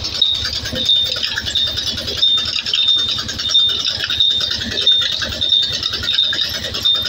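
Large band saw running and cutting through a log, a steady rattle with a high whine that pulses on and off at a regular pace, a little under twice a second.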